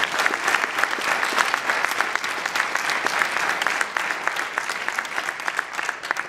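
Audience applauding: many hands clapping in a dense patter that slowly thins toward the end.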